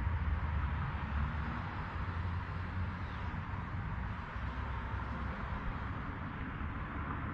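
Steady outdoor background noise: a low, uneven rumble under a soft hiss.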